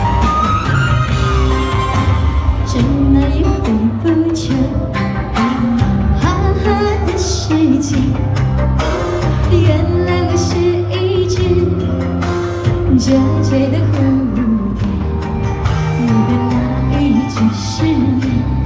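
A singer performing a pop song over a backing track with a steady beat.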